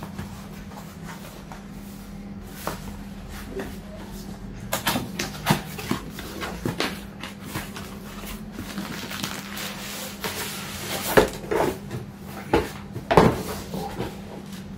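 A cardboard box being handled and opened: the flaps scrape and knock, with plastic packaging rustling and irregular clicks and thumps, loudest about eleven to thirteen seconds in. A steady low hum runs underneath.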